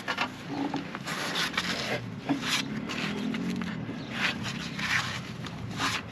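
Rubber exhaust hanger ring being stretched and worked onto its metal hanger, making a series of short rubbing and scraping sounds.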